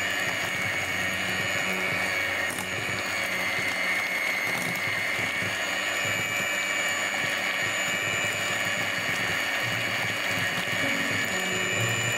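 Electric hand mixer running steadily, its beaters churning yogurt and softened marshmallows: an even motor whine with a dense whirring noise.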